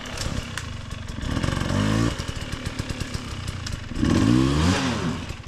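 Dirt bike engines running at low speed, the throttle opened twice so the revs rise and fall, about a second and a half in and again near the end, with a rapid idling beat in between.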